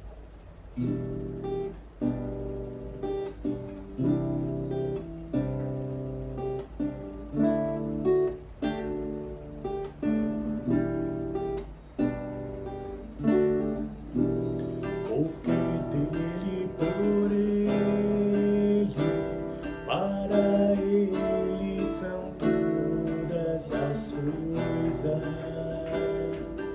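Acoustic guitar strumming chords as the instrumental introduction to a worship song.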